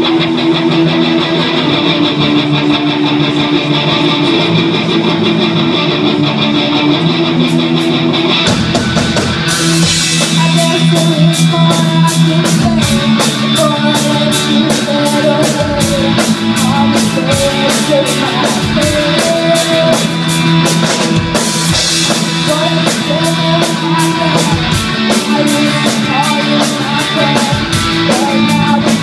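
Live rock band playing: electric guitars play the intro on their own, then the drum kit comes in about eight seconds in with a steady cymbal beat under the guitars and bass.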